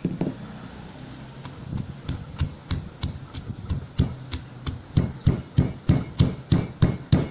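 Stone pestle pounding shallots and garlic cloves in a stone mortar. The dull strikes are sparse at first, then become a steady run of about three a second that gets louder in the second half.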